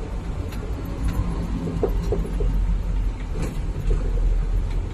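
Truck engine heard from inside the cab as a steady low rumble while the truck moves slowly in traffic, with a few faint clicks.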